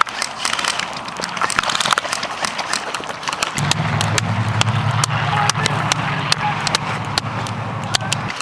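Rapid irregular footfalls of someone running, mixed with scattered sharp clicks typical of airsoft gunfire. A low steady hum comes in about three and a half seconds in.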